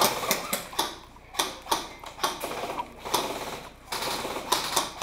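Airsoft guns firing scattered single shots, sharp cracking clicks at uneven gaps of a third to half a second, some in quick clusters.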